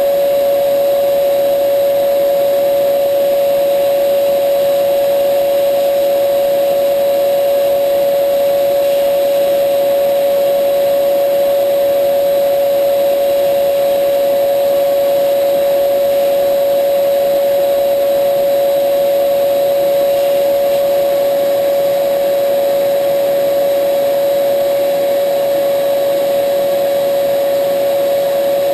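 Vacuum cleaner running steadily through a milling operation, with a constant loud whine and an even rush of air.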